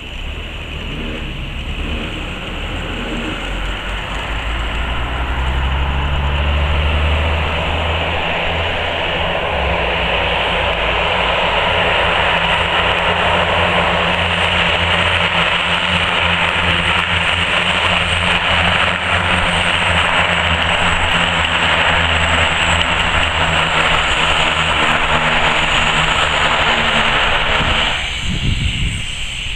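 Cessna 208B Grand Caravan's single Pratt & Whitney PT6A turboprop and propeller, rolling out on the runway after landing. The engine grows louder over the first several seconds as the plane comes toward the listener, then holds as a steady, loud propeller drone with turbine rush, and drops off sharply near the end.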